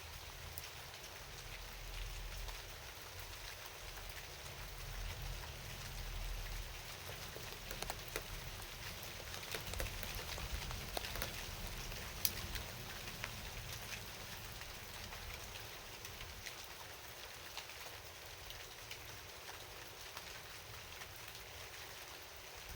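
Steady rain falling, with many separate drops tapping and one sharper drop about twelve seconds in, over a low rumble.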